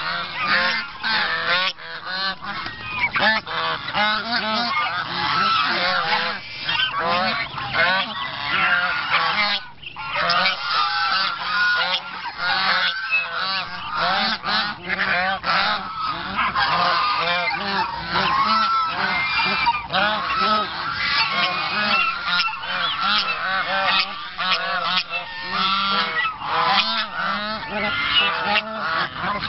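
A flock of domestic geese honking over one another as they crowd around feed, calls overlapping almost without pause, with a brief lull about ten seconds in.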